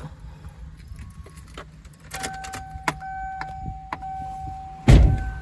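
Car keys jangling and clicking, then a steady electronic warning tone from the car comes on about two seconds in and holds, broken by sharp clicks. A single heavy thump near the end is the loudest sound.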